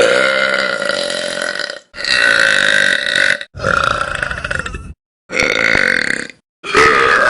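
Long, loud belches from young women, one after another: four in full and a fifth starting near the end, each lasting one to two seconds and cut off abruptly into a brief silence before the next.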